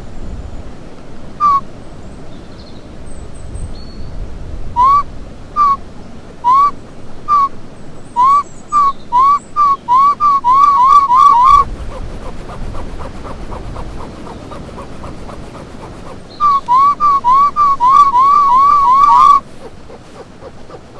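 A person imitating a bird call with short whistled whoops. The calls come about a second apart at first, then quicken into a rapid run that stops abruptly, and a second rapid run follows later.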